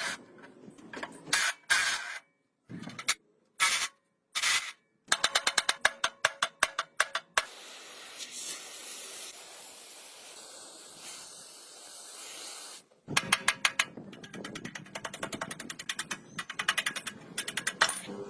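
Workshop hand-tool sounds cut together during the strip-down of a Minsk 125 motorcycle: a few short knocks, then runs of rapid metallic clicking, and a steady hiss lasting about five seconds in the middle.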